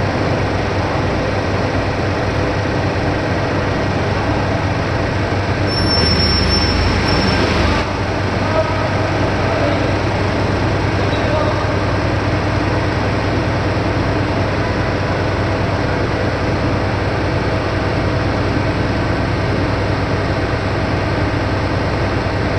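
Loud, steady industrial machinery noise around a tile press. About six seconds in it swells for roughly two seconds, with a high whine on top, then settles back to the steady din.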